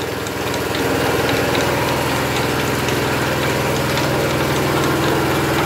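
Portable hydraulic power unit running steadily on slow, driving a Crossley 24-inch gillnet lifter, a steady mechanical hum that swells slightly in the first second, with faint ticks over it.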